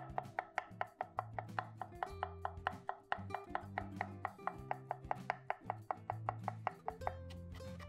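Quick, regular sharp knocks, about five a second, over background music with a steady bass line; the knocks thin out near the end.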